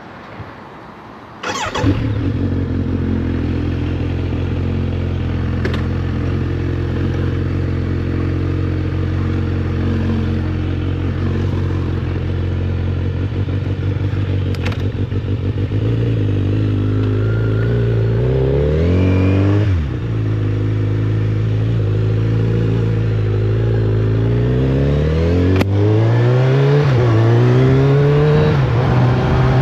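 Kawasaki Z900RS Café's inline-four engine starting about a second and a half in, then idling steadily. After about fifteen seconds it pulls away, its pitch rising, dropping at a gear change, and rising again through the next gear, with another shift near the end.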